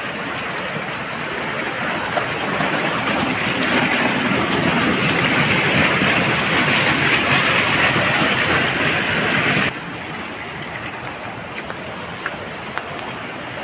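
Muddy rainwater runoff rushing along a stony gully. It is a steady rush that grows louder over the first few seconds, then drops abruptly to a softer flow about ten seconds in.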